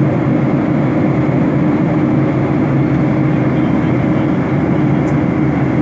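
Steady cabin noise of an airliner in cruise: an even rushing of engines and airflow with a constant low hum underneath.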